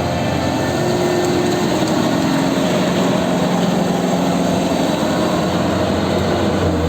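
Kubota DC-93 combine harvester running, a loud, steady engine and machinery drone.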